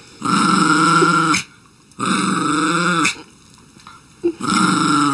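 Small dog growling in long, drawn-out grumbles: three in a row, each about a second long with a slight drop in pitch at the end, the third starting near the end.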